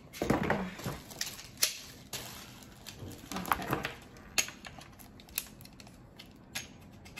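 Scattered sharp clicks and knocks of a smartphone vlogging rig being handled and fitted together, its hard mount and clamp parts tapping against each other.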